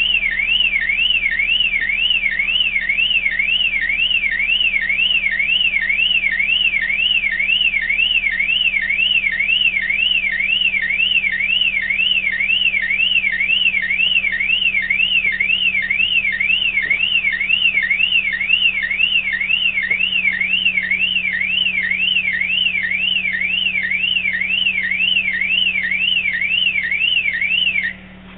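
Suzuki Vitara's car alarm siren sounding, a loud tone sweeping up and down about twice a second, cutting off suddenly near the end.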